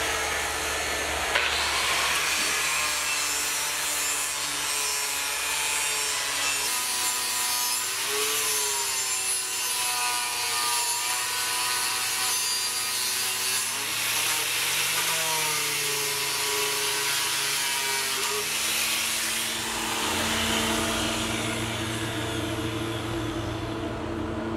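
Angle grinder grinding aluminum box-section stanchions, shaping their tops to a fair line. Its whine dips and recovers as the disc bites, and the grinding dies away near the end.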